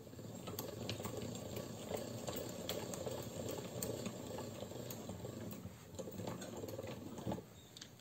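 Pasta machine's spaghetti cutter running a sheet of firm dough through its rollers and cutting it into thin strands: a steady grinding rattle with many small clicks, stopping with a knock about seven seconds in.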